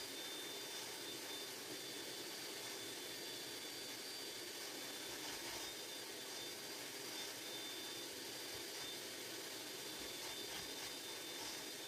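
Vacuum cleaner running steadily: an even whoosh of airflow with a faint high motor whine.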